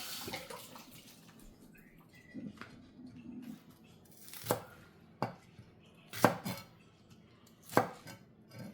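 Running tap water fading out at the start, then a kitchen knife striking a cutting board in about five separate, irregularly spaced chops.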